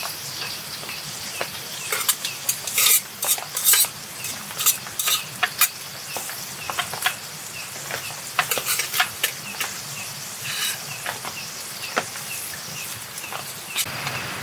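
Meat sizzling as it fries, with a utensil scraping and tapping against the pan many times as it is stirred and turned.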